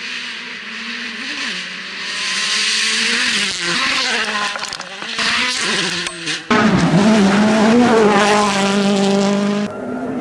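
Rally cars running hard on the shakedown stage: engines revving up and down through the gears over a hiss of tyre and gravel noise. About six and a half seconds in, the sound switches abruptly to another, louder car holding a steadier engine note.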